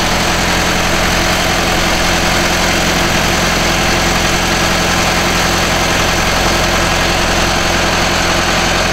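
Truck-mounted drilling rig's engine running steadily while the rig turns steel well casing down into the ground.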